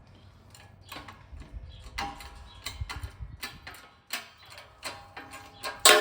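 Hand tools working on metal parts: irregular sharp clicks and taps that grow louder after about two seconds, some with a brief metallic ring. Near the end comes a loud strike that leaves a ringing tone.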